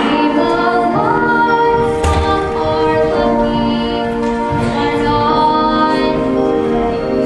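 Live stage-musical singing: a woman's voice holding sustained sung notes over instrumental accompaniment.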